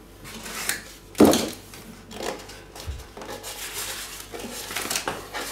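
Cardboard flat-pack packaging being handled and lifted out of its box: rustling and scraping with a few knocks, the loudest a thump about a second in and a duller one about three seconds in.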